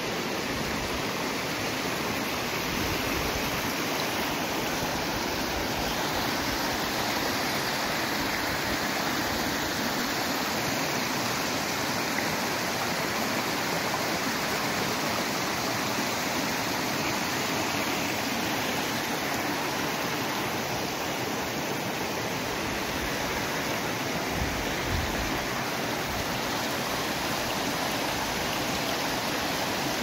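Mountain stream rushing over rocks and small rapids: a steady, even rush of water.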